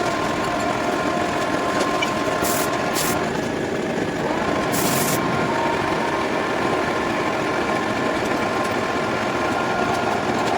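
A machine running steadily with a constant hum, typical of a machine tool at work in a workshop; brief high hisses cut in about two and a half seconds in and again about five seconds in.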